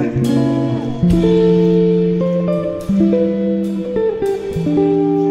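Background music: a guitar-led instrumental with held notes and chords changing about once a second.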